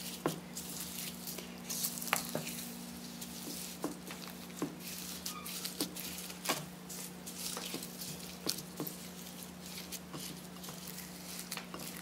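Fingers stirring and pressing small foam beads into slime in a glass bowl: a crackly rustle of the beads with many scattered sharp clicks, over a steady low hum.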